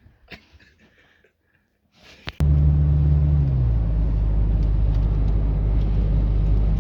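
A car engine starts about two seconds in and settles into a steady idle, its pitch dropping a little about a second after it catches.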